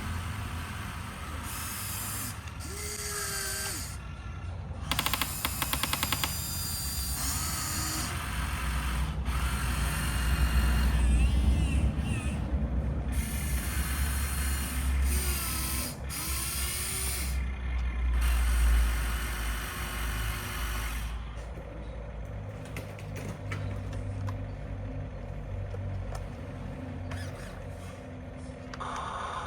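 Small electric motors and gears of radio-controlled construction models whirring and rattling in changing bursts, with short whines that rise and fall in pitch over a low rumble.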